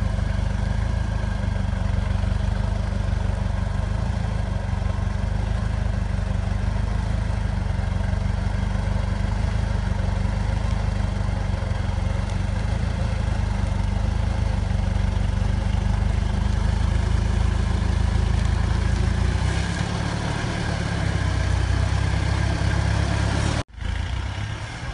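Lifted off-road 4x4 pickup's engine running steadily under load as it crawls up a steep bank, its note changing about three-quarters of the way through. Near the end the sound cuts off abruptly and a quieter engine follows.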